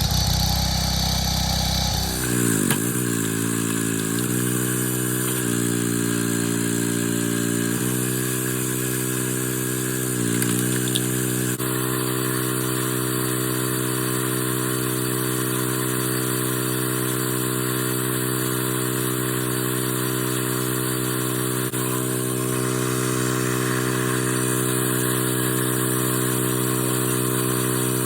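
Small gasoline engine on a homemade log splitter running. It runs low and rough at first, then picks up speed about two seconds in with its speed swinging up and down, dips briefly again around ten seconds in, and then holds a steady high-speed run.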